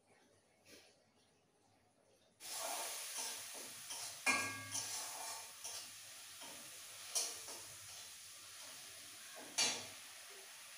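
Food frying in hot oil in a kadai, a sizzle that starts suddenly about two and a half seconds in, while it is stirred, the utensil knocking and scraping against the pan three times.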